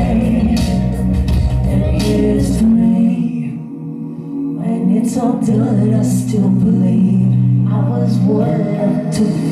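Live song: two women singing into microphones over a musical backing. The deep bass drops out about three seconds in, and the music dips briefly before the voices pick up again.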